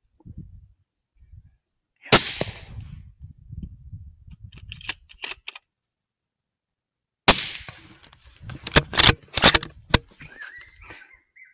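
Hunting rifle shots at a coyote: one sharp crack about two seconds in, a second about seven seconds in, then a quick string of several sharp cracks.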